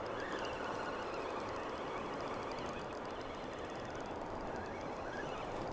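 Spinning reel being cranked steadily to retrieve a hooked fish, over a steady rushing background noise.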